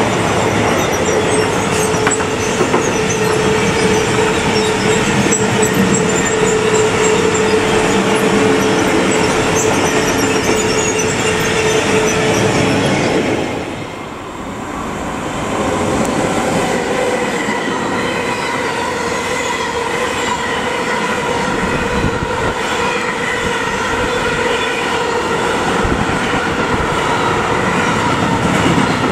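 Freight wagons rolling past at speed, with continuous wheel and rail noise and a steady metallic wheel squeal. After a short dip about halfway, a second freight train of hopper wagons passes close by, with the same rolling noise and a higher squeal.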